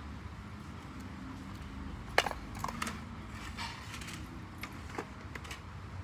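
Steady low rumble of shop ambience with scattered light clinks and knocks of small items being handled, the sharpest about two seconds in.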